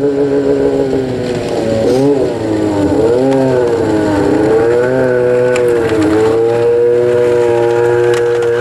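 ATV engine running under way, its pitch dipping and rising several times as the throttle is eased and opened again.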